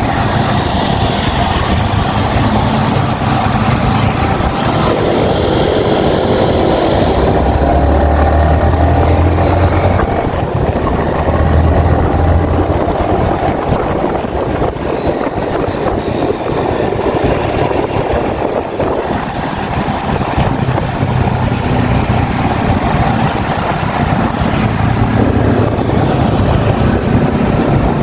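Yamaha XSR 155's single-cylinder four-stroke engine running under way on the road, its note changing with throttle several times, strongest and deepest from about eight to twelve seconds in, mixed with a steady rush of wind and road noise.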